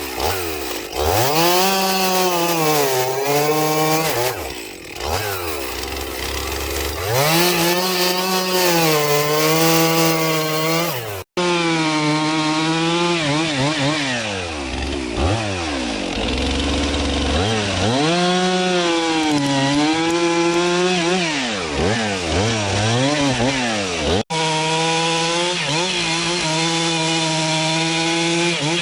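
Stihl MS 362, a 59 cc two-stroke chainsaw, at full throttle cutting through logs: the engine pitch sags under load in each cut and climbs back when the chain comes free, over and over. The sound cuts out abruptly twice, about a third and about four-fifths of the way through.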